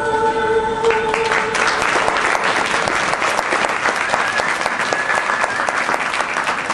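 Audience applauding, many hands clapping, starting about a second in as the last held note of the skating music dies away.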